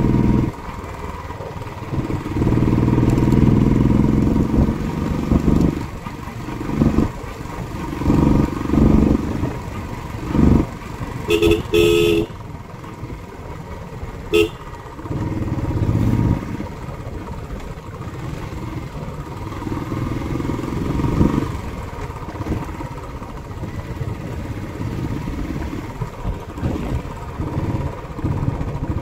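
Royal Enfield Classic 350's single-cylinder engine running, heard from the saddle, its sound swelling and easing as the throttle opens and closes through the bends. A horn toots about eleven seconds in and once more, briefly, a couple of seconds later.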